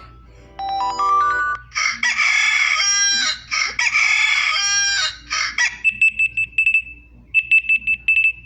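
Alarm tones played one after another: a short rising run of electronic notes, then a recorded rooster crowing twice, then rapid high-pitched electronic beeping in two bursts.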